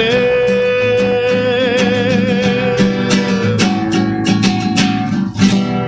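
A man singing one long held note with vibrato over a strummed nylon-string classical guitar. The held note ends about three and a half seconds in, and the guitar carries on strumming.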